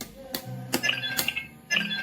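Plastic switches on a battery-powered toddler busy board clicking as they are flipped, about four sharp clicks, with short electronic beeps and a tune from the toy's speaker.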